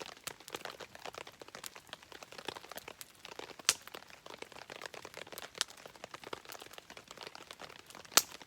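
Wood campfire crackling with many small snaps and three loud sharp pops a couple of seconds apart, over a steady patter of rain.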